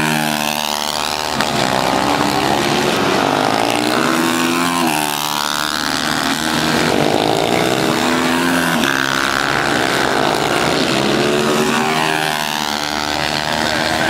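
Supermoto race motorcycles' engines revving on track, the pitch rising and falling several times as the bikes accelerate, shift and pass.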